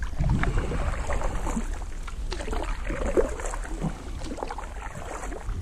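Canoe paddle strokes in still water: the blade dipping and pulling with splashing and dripping, swelling with each stroke.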